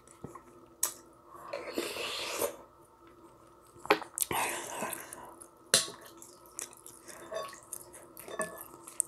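Close-miked sounds of a person eating spicy ramyun: wet chewing and mouth noises, with a few sharp clicks.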